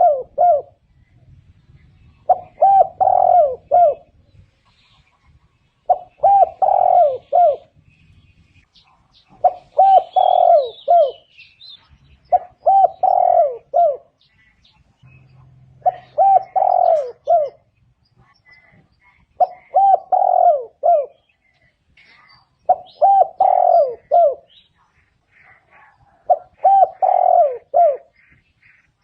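Spotted dove cooing: a phrase of several quick, rolling coos repeated about every three and a half seconds, eight or nine times. Faint higher bird chirps come between the phrases.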